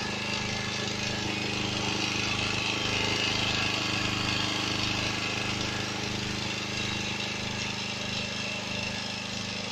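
Honda EG1000 portable generator's small engine running steadily on LPG through a gas converter kit, powering a set of lamps; the engine holds an even speed under that load.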